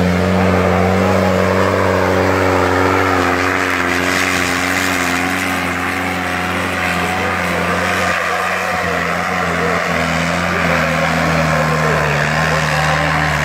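New Holland 3630 tractor's three-cylinder diesel engine running flat out under heavy load as it drags a disc harrow through the soil, a loud, steady drone that holds nearly one pitch.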